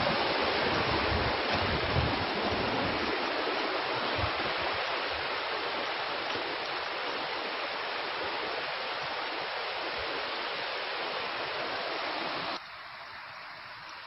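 Steady rush of a rocky forest stream's flowing water, with a few low bumps in the first few seconds; the rushing drops abruptly quieter about a second before the end.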